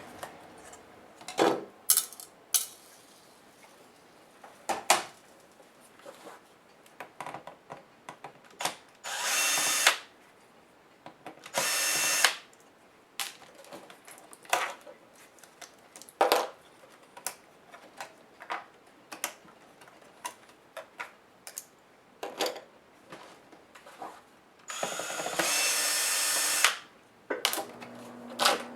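Electric screwdriver whirring in three short runs, backing screws out of an HP DV8000 laptop's case, among many small clicks and taps of screws and plastic parts being handled.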